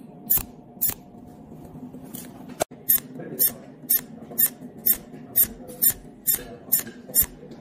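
Cold welding machine firing short weld pulses, first on red copper balls and then on thin stainless steel tube: sharp snaps about two a second, with a brief gap about two and a half seconds in.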